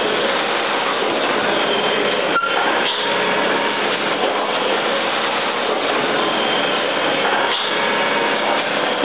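Industrial meat-slicing and robotic loading line running: a steady, even machine noise with faint whines.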